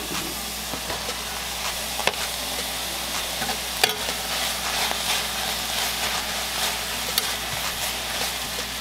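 Pulled pork, cauliflower and green beans sizzling in coconut oil in a steel skillet as they are stirred with a spatula. A few sharp clicks of the spatula against the pan come about two, four and seven seconds in.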